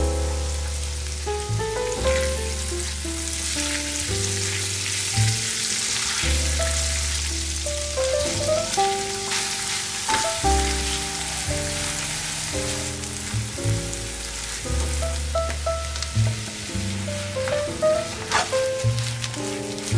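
Olive oil sizzling steadily in a frying pan as garlic, squid liver, onion and then squid rings sauté and are stirred with a silicone spoon, under background music with a bass line.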